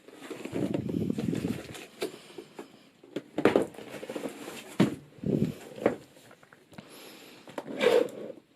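Cardboard box and packing being handled during unboxing: irregular rustling and scraping with several short knocks.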